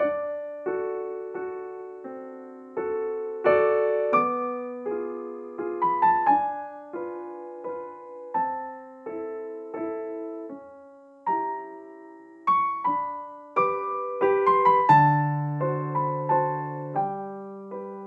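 Slow solo piano music: single notes and soft chords struck one after another and left to ring and fade, with a deeper bass note coming in about three seconds before the end.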